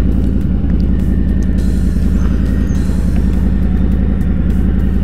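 Motorcycle engine running steadily at low revs as the bike rolls slowly in to pull up, a deep even pulsing hum.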